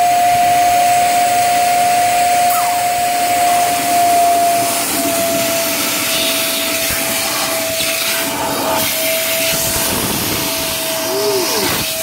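Parkside PNTS 1500 C4 wet and dry vacuum cleaner running with a steady high whine while its nozzle sucks water out of a bucket. The whine drops a little in pitch about halfway through, and the slurping turns more broken and sputtery near the end as the water runs low.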